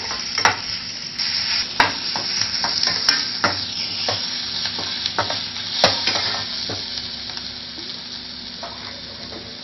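Chopped onions sizzling as they sauté in oil in a stainless steel kadai, stirred with a perforated steel ladle that scrapes and clinks against the pan. The clinks come often for about six seconds and then thin out, leaving the sizzle.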